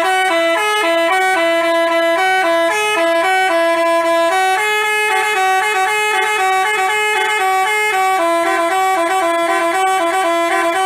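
Basuri telolet horn, a multi-trumpet musical bus horn, playing a quick tune of short held notes one after another without a break.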